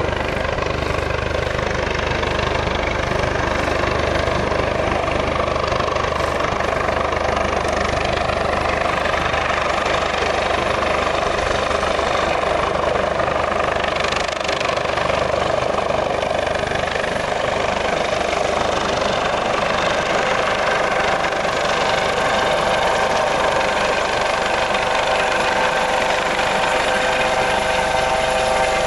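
US Coast Guard HH-65 Dolphin helicopter hovering overhead: a steady rotor and turbine drone. A whine of steady tones comes through more clearly in the last third as the helicopter draws closer.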